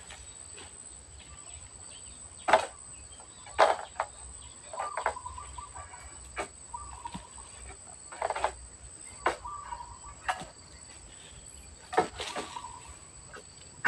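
A steady high insect drone runs throughout, with short bird chirps. A series of sharp knocks or thuds comes every second or two, the loudest about two and a half and three and a half seconds in.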